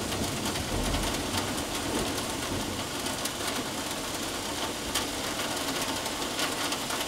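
Steady rain falling during a thunderstorm, a constant hiss of downpour with scattered drops ticking, and a low rumble dying away in the first second or so.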